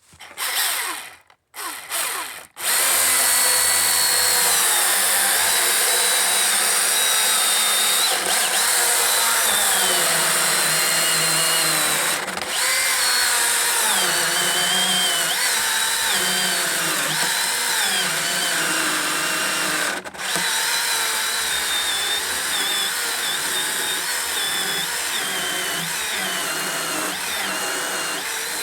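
Milwaukee battery-powered chainsaw: a few short trigger blips, then about two and a half seconds in the motor spins up and keeps running under load as it cuts through dry deadwood. Its whine wavers in pitch as the chain bites, with two brief let-offs near the middle.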